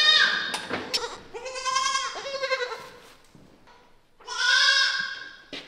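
Goat kids bleating: the tail of one long call, then two more long, wavering bleats about a second and a half and about four seconds in.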